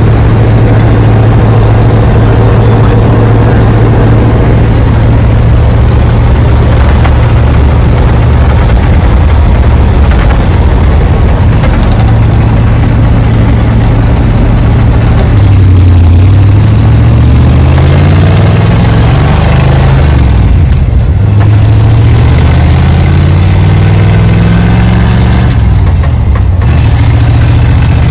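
Old rat-rod truck's engine heard from inside the cab while driving, with road and wind noise. It drones steadily at first. About halfway through it rises in pitch as it accelerates, drops back at a gear change, then climbs again and drops at a second shift near the end.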